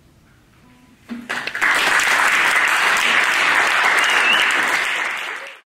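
Audience applauding, starting about a second in and quickly building to a steady clapping, then cutting off abruptly near the end.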